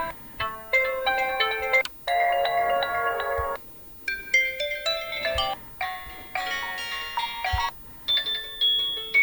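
Built-in ringtones of an OPPO Find X2 Neo phone previewed one after another: short melodic ringtone snippets, each cut off after a second or two and followed by the next, about five in all.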